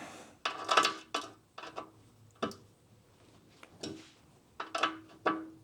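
Short bursts of metallic clicking and clinking from hand tools as the mounting hardware of an aluminium motorcycle toolbox is tightened, about five bursts with short pauses between them.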